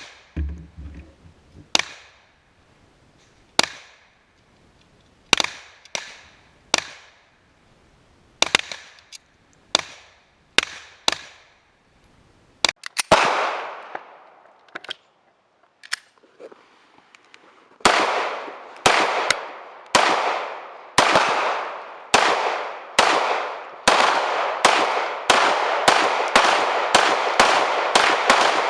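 Gunshots at a shooting range: scattered single shots for the first half, then a steady string of shots about one a second that quickens toward the end, each with an echoing tail.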